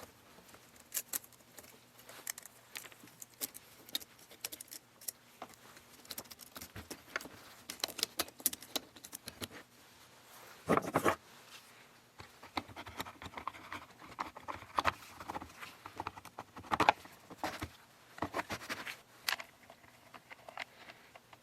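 Scattered light clicks and metallic rattles of chainsaw parts being handled, with a louder clatter about eleven seconds in.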